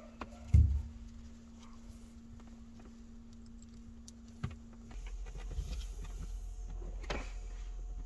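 Handling noise from wiring work in a cramped camper compartment: a dull thump about half a second in, then scattered small clicks and rattles of wires and parts over a faint steady hum.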